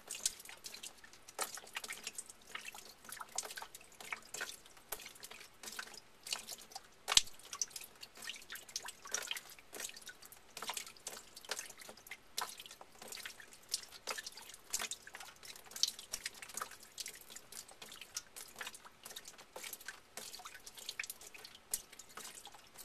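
Water dripping irregularly, several drops a second, from the cut end of a 3/4-inch PEX hot-water line as leftover water drains out of the shut-off line; one louder drop about seven seconds in.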